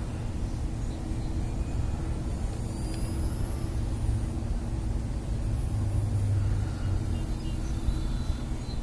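Gusty wind buffeting the microphone, a steady low rumble that swells for a moment about six seconds in.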